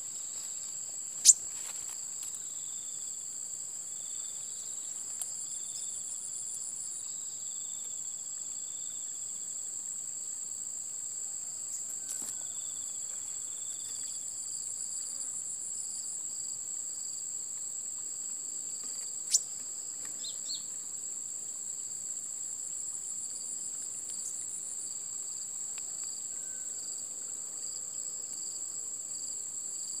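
Steady high-pitched drone of insects, cricket-like, running without a break. Faint short chirps repeat during the first several seconds, and there are two sharp clicks, one about a second in and one near the middle.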